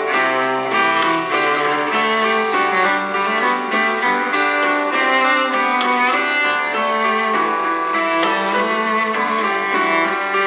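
A Samsung Galaxy S10 Plus ringtone playing: a continuous instrumental melody of many overlapping pitched notes, changing quickly, at a steady level.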